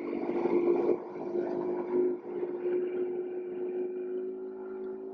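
Motorboat engine running at a steady pitch while under way, with water rushing and splashing from the wake, loudest in the first second.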